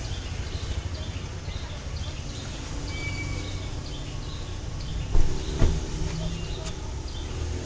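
Roadside street ambience: a steady low rumble of traffic with small bird chirps over it, and two dull thumps about five seconds in.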